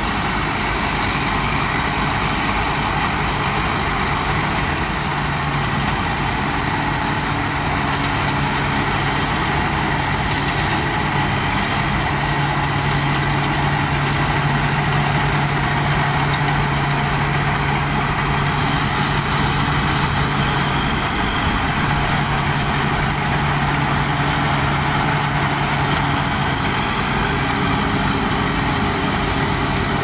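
Sakpatana rice combine harvester running steadily while cutting and threshing rice: a constant engine drone with a thin high whine that wavers slowly up and down in pitch.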